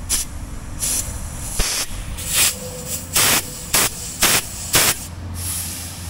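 Compressed air from a shop air line hissing in about eight short blasts, coming closer together and louder through the second half.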